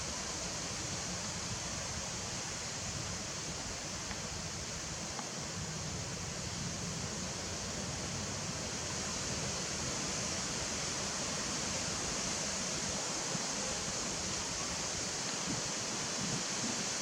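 Steady, even hissing background noise with no distinct events.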